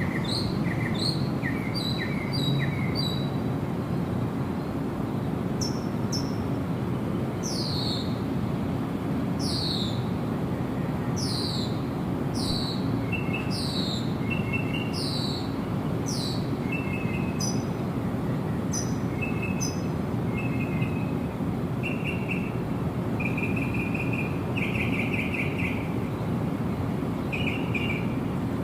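Songbirds calling over a steady low rush of falling water: repeated short chirps at first, then a run of falling whistled notes, then short trills toward the end.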